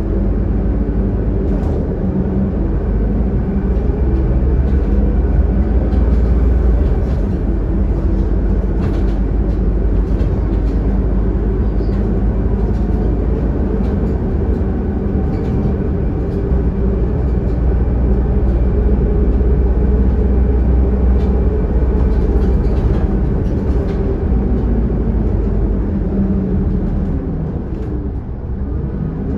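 Scania K280UD double-decker bus under way, heard from the lower deck: its five-cylinder diesel engine runs with a steady deep rumble and hum, with light interior clicks and rattles. The sound eases a little near the end.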